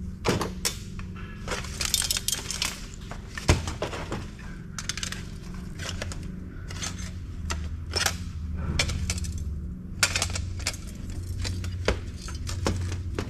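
Pliers and small metal parts clinking and clattering irregularly on a stainless steel workbench while wiring is worked off a circuit board, over a steady low hum.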